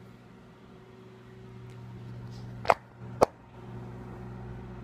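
Microwave oven running with a steady low hum. Two sharp knocks, about half a second apart, come just after the middle.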